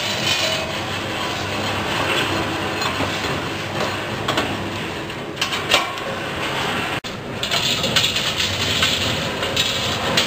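Coffee-roasting machine running, its drum turning with the beans tumbling and rattling inside: a steady rattling noise with a few sharp clicks. It breaks off for an instant about seven seconds in.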